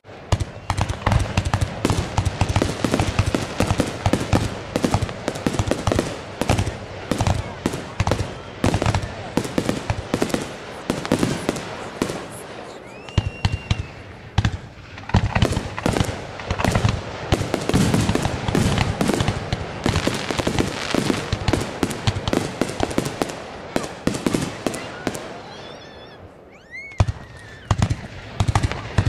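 Fireworks going off in dense, rapid barrages of pops, bangs and crackle, easing off briefly near the end before picking up again. Two short whistling glides cut through, one about midway and one just before the end.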